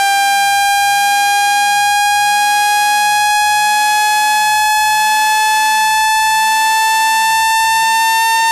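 Synthesized speaker-cleaning tone meant to shake water and dust out of a phone speaker: one loud, steady buzzy tone whose pitch creeps slowly upward.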